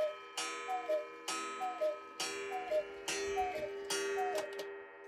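Hekas Chalet 8-day mechanical cuckoo clock calling the hour. There is a gong strike with each falling two-note "cuck-oo", about one a second, six times in a row.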